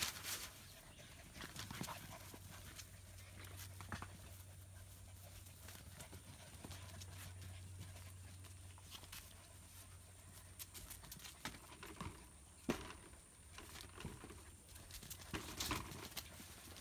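German Shepherd puppies scampering and tussling on concrete slabs: faint pattering of paws and claws with scattered scuffs and knocks, one louder knock about two-thirds of the way through.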